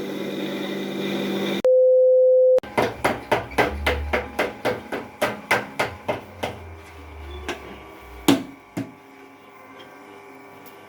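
Blacksmith's power hammer test-running, its ram striking in a fast even rhythm of about four blows a second, then a few slower single blows near the end. A steady beep tone sounds for about a second shortly before the blows begin.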